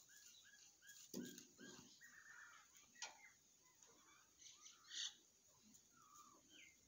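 Faint chirping of small birds: a quick run of short chirps in the first second, then scattered chirps, with a few soft knocks and scuffs.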